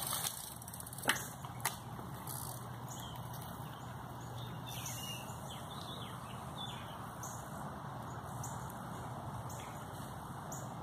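Steady outdoor background noise with faint bird chirps, and two sharp clicks a little over a second in.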